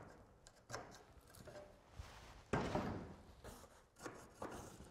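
Faint handling of natural roof slates on a timber batten: a few light knocks and, about halfway through, a scraping rub as a carpenter's pencil marks a slate's edge and the slate is slid off.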